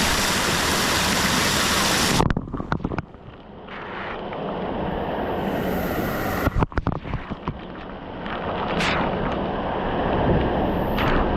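Rushing, splashing water, cut off abruptly about two seconds in, followed by muffled rumbling with scattered knocks and handling noise.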